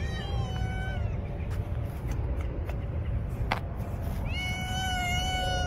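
Street cat meowing twice: a short meow at the start and a long, drawn-out meow near the end, over a steady low rumble.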